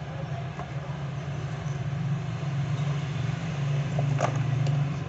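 A steady low mechanical hum, growing a little louder near the end, under a few light clicks from small metal watch parts and tools being handled; the sharpest click comes about four seconds in.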